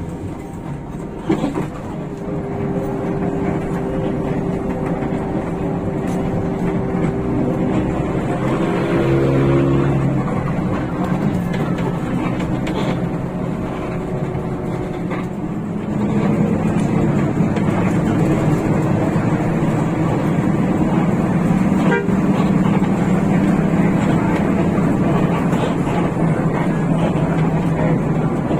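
Hino RK8 bus under way, heard from inside: a steady drone of the rear diesel engine over road noise. The engine note drops lower and gets louder about halfway through.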